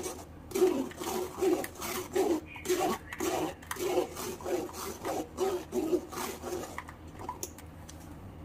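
Blended plum pulp being pressed and scraped through a fine metal mesh strainer with a spoon: a wet, rubbing scrape repeated about two or three times a second, dying away about seven seconds in.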